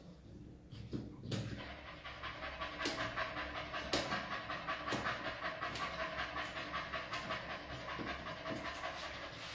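Dog panting rapidly and steadily, after a brief lull at the start.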